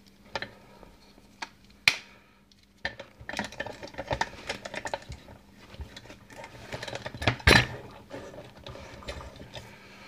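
Metal clicks and clinks as a euro cylinder lock is handled and clamped into a bench vise, with a sharp knock about two seconds in and a louder one about seven and a half seconds in.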